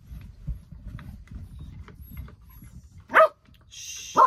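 A dog barks twice, two short barks about a second apart near the end, over a low rumble.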